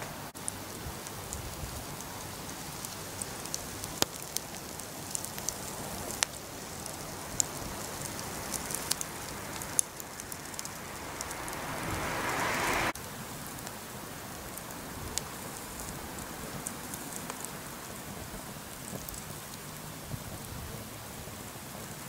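Swedish torch (split-log fire) burning, crackling with sharp pops scattered over a steady hiss. Near the middle a rising rush of hiss builds for a few seconds and cuts off abruptly.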